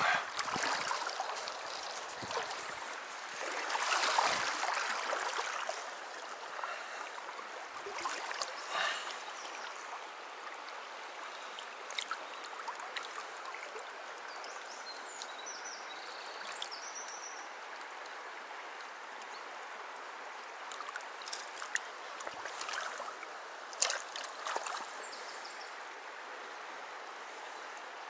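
Small stream flowing steadily over shallow water, with a few brief louder splashes near the start, about four seconds in and again toward the end as a landed brown trout is handled in the shallows.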